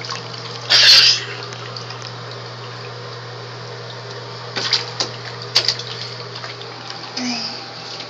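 Bath water splashing as a toddler plays in the tub: one loud splash about a second in and a few smaller sharp splashes around the middle, over a steady low hum.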